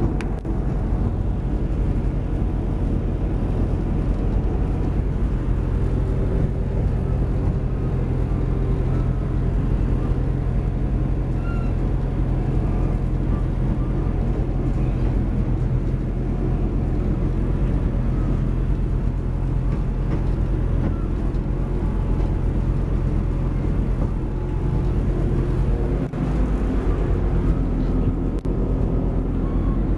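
Train running along the line, heard from inside the carriage: a steady low drone and rumble of engine and wheels on the track.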